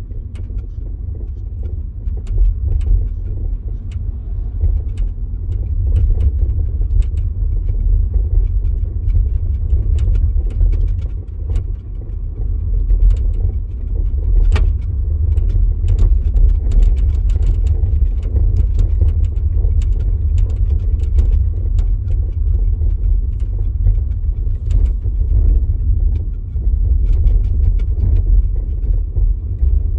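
Volkswagen e-Up electric car driving: a steady low rumble with many irregular sharp clicks and knocks throughout, the noises which the owner suspects come from the rear axle.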